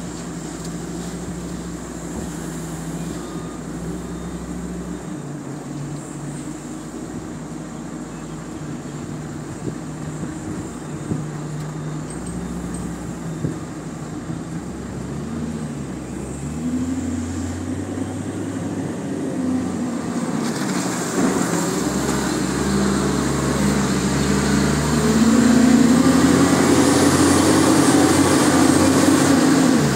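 Caterpillar 966 wheel loader's diesel engine running under work, its pitch rising and falling. It grows louder through the second half and is loudest near the end as it revs up.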